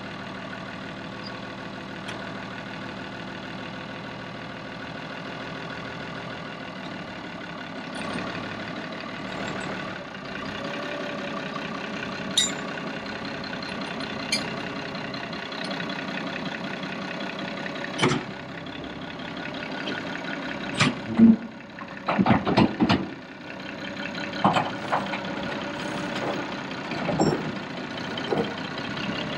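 1976 International Harvester 1566 tractor's six-cylinder turbo diesel idling steadily. In the second half, a series of loud, sharp knocks and clunks as the tractor moves off across the trailer deck and down its ramps.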